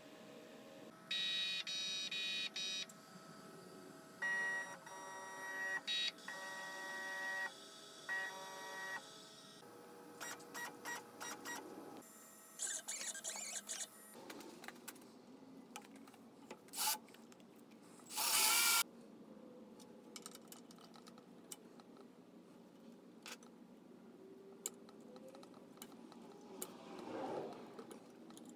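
A CNC stepper motor being test-run in short jogs, each run a steady buzzing whine with several overtones that starts and stops abruptly. It is followed by clicks and a couple of short bursts of noise.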